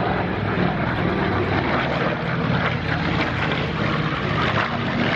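B-25 Mitchell bomber flying by, its two Wright R-2600 Twin Cyclone radial engines running with a loud, steady drone.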